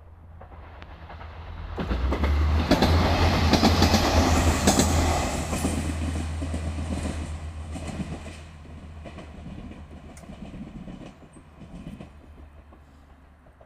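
Two coupled SNCF X 72500 two-car diesel railcars passing over a level crossing. The sound builds to a loud peak about two seconds in, with rapid wheel clicks over the rails and a deep engine hum, then fades as the train moves away.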